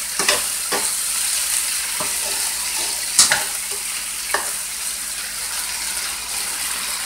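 Beef short ribs sizzling in a skillet with onions and green pepper: a steady frying hiss, broken by a few sharp pops and clicks as the pieces are moved around in the pan by hand.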